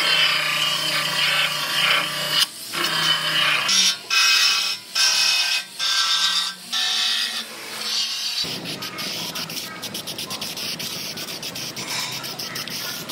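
Finger belt sander grinding sheet steel in repeated bursts with short pauses, prepping the metal for spot welds. About eight seconds in it gives way to the even hiss of an aerosol can spraying weld-through primer.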